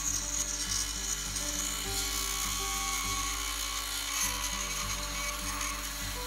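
Background music with a steady beat over the coarse scraping of a round file rasping back and forth in a slot in a fibreglass rudder, cleaning out resin.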